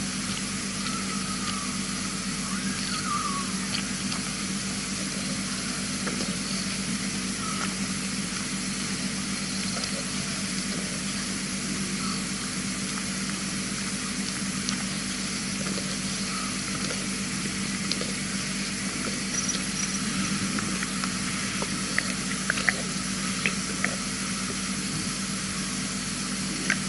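Steady hiss with a low electrical hum from an outdoor wildlife camera's microphone at night, with a few faint chirps in the first few seconds and scattered sharp clicks near the end.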